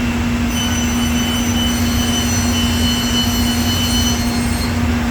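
Steady electrical hum and fan noise from a freshly powered-up CNC machine, with a set of high-pitched electronic whines that come in about half a second in and cut off near the end.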